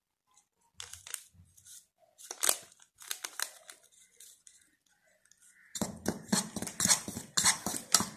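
Metal spoon scraping and tapping in a ceramic bowl of dry gram flour and spices: a few scattered taps and scrapes at first, then rapid stirring strokes from about six seconds in.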